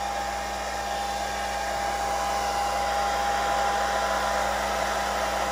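Conair handheld hair dryer running steadily on its low fan setting, an even rush of air with a thin steady whine.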